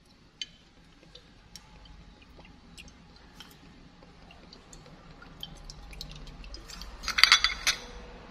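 Fish sauce trickling from a bottle into a steel spoon, with scattered faint ticks. About seven seconds in, the steel spoon scrapes and clinks against a glass bowl of sugar as the sauce is tipped in.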